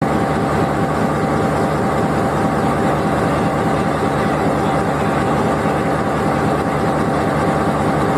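Diesel locomotive engine idling steadily at close range, with a thin steady whine over the low engine drone.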